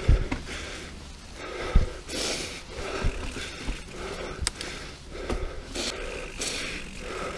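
Mountain biker breathing hard in repeated gasps, with sharp knocks and rattles from the bike jolting over the rough, rooty trail.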